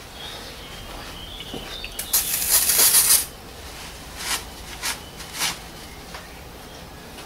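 Paper towel rustling as it is wiped over the oily sump around the drain plug: one long rustle about two seconds in, then three short wipes.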